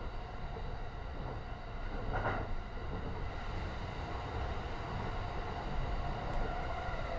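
JR East E235-1000 series electric train running, heard from inside a Green car: a steady low rumble of wheels on rail with faint steady tones above it, and a brief swell of higher-pitched noise about two seconds in.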